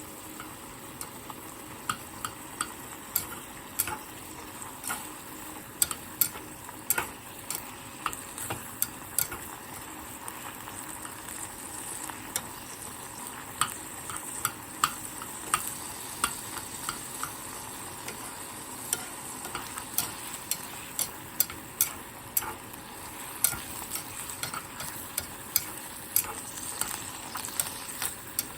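Food sizzling in a pan while it is stirred, with a steady hiss and frequent irregular clicks and scrapes of a utensil against the pan.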